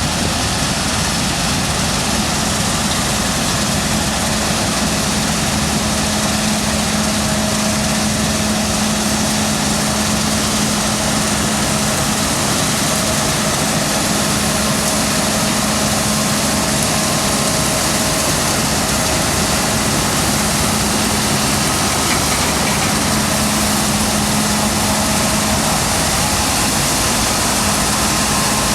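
Claas Lexion 7600 combine harvester running steadily at work in a bean crop: a loud, even machine noise with a steady hum and no change in pitch.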